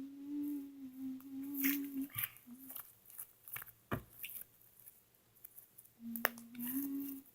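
A girl humming a steady note, breaking off about two seconds in and starting again near the end. In the gap come a few soft pops, clicks and a thump from thick slime being pressed and poked.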